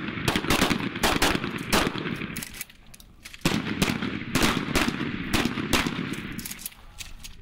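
A line of shotguns, pump-action among them, firing rapidly together: dozens of overlapping blasts in two long strings, with a short lull about three seconds in.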